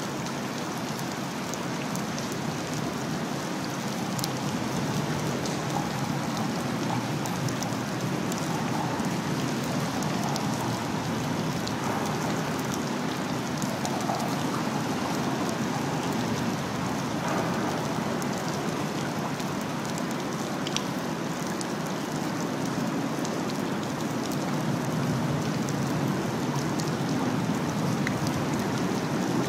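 Steady rushing water noise from the storm-swollen river running high and fast, with faint scattered ticks.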